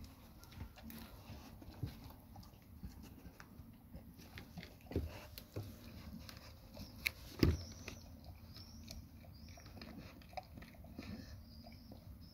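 Labrador retriever nosing and mouthing scraps off paving stones: scattered small clicks and chewing noises, with one louder knock about seven and a half seconds in.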